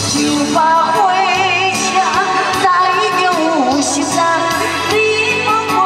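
A woman singing a Taiwanese song through a microphone over backing music, her voice coming in about half a second in and holding notes with a wavering vibrato.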